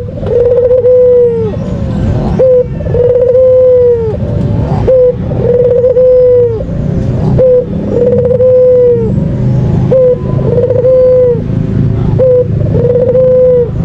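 White ringneck dove (puter putih) cooing over and over: a short note, then a long, level coo, repeated about every two and a half seconds. A steady low rumble runs underneath.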